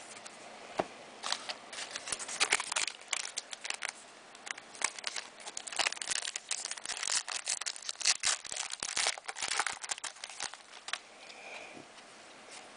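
Trading cards and their wrappers being handled: a dense, irregular run of rustling, light scraping and small clicks as the cards are slid and flipped through.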